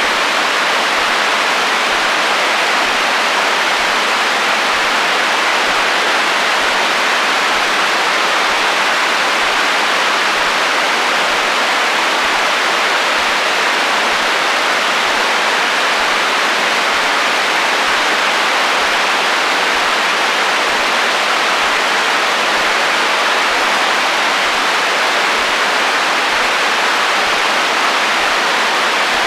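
Radio static: a steady, even hiss of FM interference picked up on the HF band, with no tones or voices coming through.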